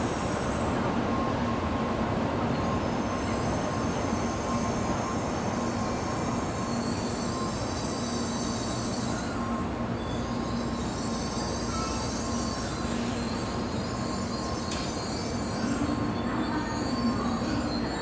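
Steady rumble and hum of Tokaido Shinkansen trains at a station platform, with thin high squealing notes that come and go over it.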